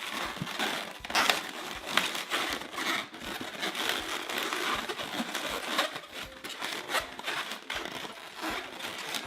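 Inflated latex 260 modelling balloon being handled and twisted into another loop, its surface rubbing against the hands in a steady crinkly rustle with many small sharp clicks.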